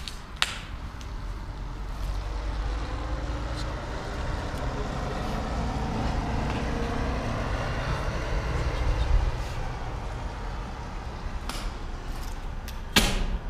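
Road traffic, a passing vehicle swelling to a peak about nine seconds in and then fading, over a low steady rumble. A short knock sounds about half a second in and a louder one near the end.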